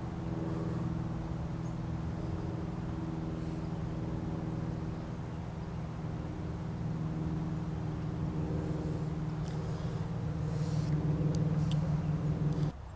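Steady hum of a running engine, growing louder near the end and then cutting off suddenly.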